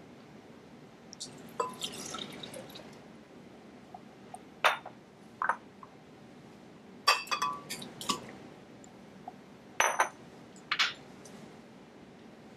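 Juice poured into a glass blender jar, then several sharp clinks as cups and bowls knock against the glass while more ingredients are spooned in.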